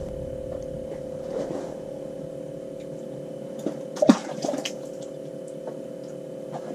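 Steady electrical hum, with a few light clicks and a sharp knock about four seconds in as fishing line and jig are handled by hand.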